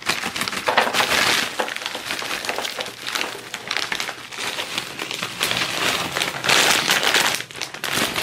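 Takis Fuego rolled tortilla chips being poured from a crinkling foil snack bag, the chips clattering onto a plate.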